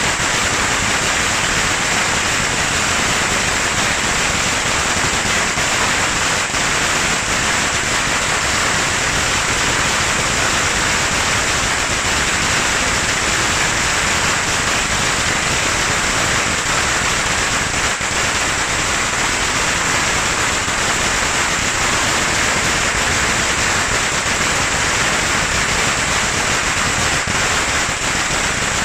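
Strings of red Chinese firecrackers going off in a dense, unbroken rattle of rapid bangs at a steady loudness.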